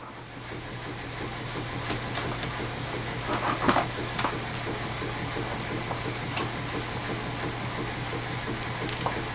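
Power drill turning a copper wire stripper, running steadily as wire is pulled through, with a few light clicks and rattles. It builds up over about the first second.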